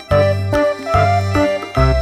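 Background music: a bouncy keyboard tune with held melody notes over a bass note repeating about every 0.8 seconds.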